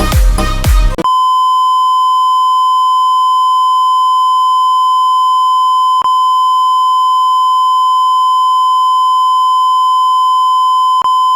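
Electronic dance-style background music cuts off about a second in and is replaced by a steady, high-pitched electronic beep tone. The tone holds at one pitch and drops out for an instant twice.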